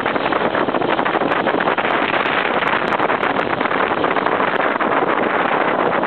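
Off-road motorcycle climbing a dirt forest road: the engine running steadily under load, blended with wind buffeting the microphone, with occasional sharp ticks.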